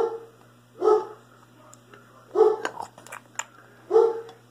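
A dog barking: four short, single barks spaced about one to one and a half seconds apart, with a few faint light clicks between them.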